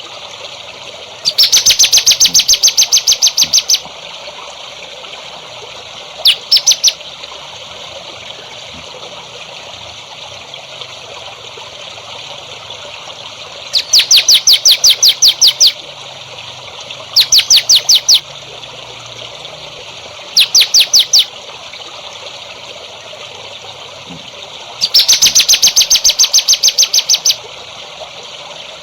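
A songbird repeating loud trills of rapid, evenly spaced high notes, six bursts of up to about two seconds each with pauses between, over steadily trickling water.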